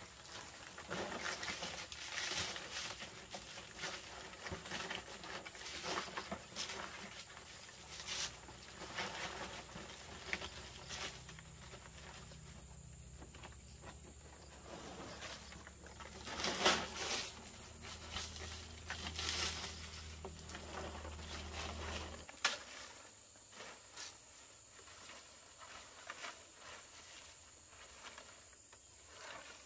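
Palm leaves rustling and crackling as they are handled and laid as thatch on a bamboo roof frame, in irregular bursts. A low steady hum runs underneath and stops suddenly about two-thirds of the way in.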